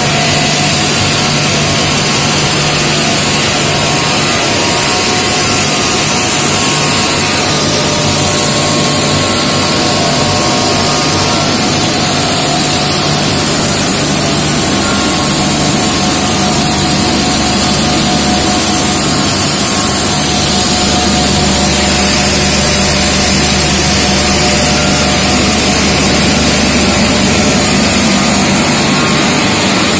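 Starch processing-line machinery running: motors, conveyors and vibrating screens carrying chopped material make a loud, steady noise with a constant hum.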